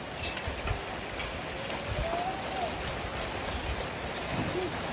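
Rain mixed with small hail falling steadily, an even hiss with scattered light ticks.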